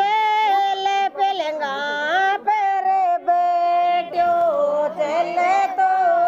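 Women singing a Rajasthani jawai geet, the folk song for a son-in-law, in long held notes that slide up and down between pitches.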